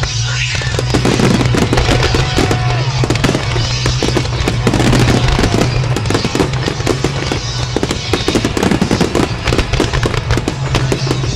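Fireworks finale barrage: a dense, continuous run of bangs and crackles from many shells bursting in quick succession, with music playing alongside.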